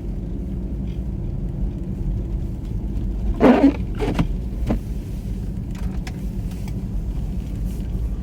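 Steady low rumble of a car's engine and tyres on a snow-covered road, heard inside the cabin while driving slowly. A short louder sound comes about three and a half seconds in, followed by a couple of sharp clicks.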